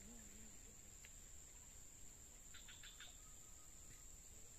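Faint insect ambience, crickets making a steady high drone, with a short run of about five quick chirps about two and a half seconds in.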